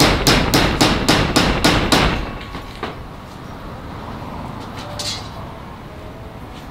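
Hammer blows, about four a second, driving a nail for a diagonal brace; they stop about two seconds in. Later there is a single knock and a short hiss-like scrape.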